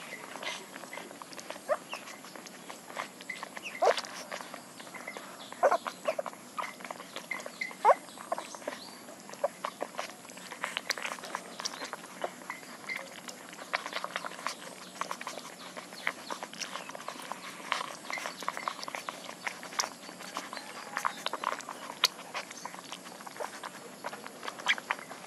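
Young puppies nursing from their mother: a steady run of quick wet suckling and smacking clicks, with a few short squeaks about 4, 6 and 8 seconds in.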